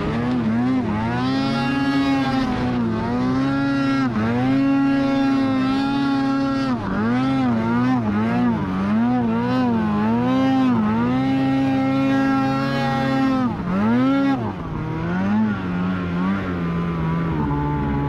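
Polaris RMK 850 snowmobile's two-stroke twin engine running at high revs in deep powder, its pitch dipping and recovering again and again as the throttle is worked. About fourteen seconds in it drops sharply, runs lower and steadier for a few seconds, then climbs back near the end.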